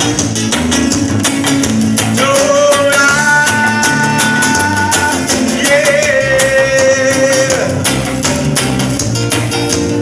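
Instrumental break in a Brazilian pop song: a steady percussion beat with guitar, and a melody that holds two long notes, one after the other.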